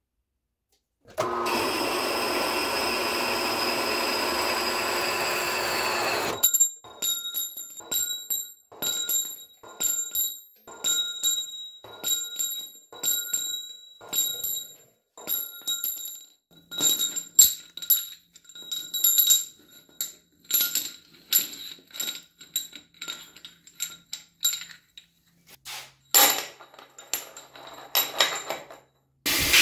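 Short pieces of half-inch steel round bar clinking against each other and the floor, with many sharp clinks that each ring with a clear bell-like tone. The clinks follow a steady machine sound of about five seconds that cuts off abruptly.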